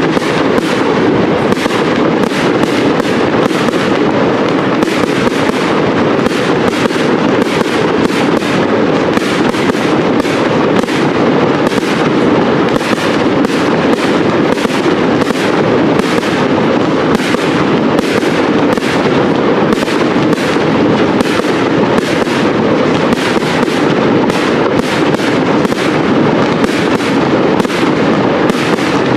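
Professional fireworks display going off in a dense, unbroken barrage: rapid overlapping bangs and crackles with no pause between them, setting in suddenly.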